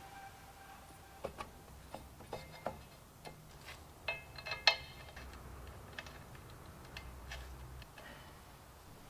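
Scattered small metallic clicks and taps from tools and engine parts being handled while an ignition coil is fitted to a scooter engine. A few strokes ring briefly, and the loudest is a sharp clink about four and a half seconds in.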